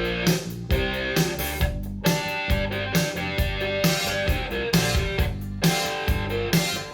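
Rock music with electric guitar and drums played back through hi-fi loudspeakers, with a steady beat.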